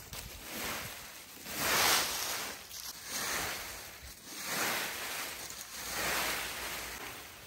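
Garden debris being swept: a run of swishing strokes, about one every second and a half.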